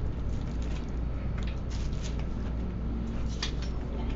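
Packaging being handled during an unboxing: scattered rustles and light clicks, with a sharper click about three and a half seconds in, over a steady low background hum.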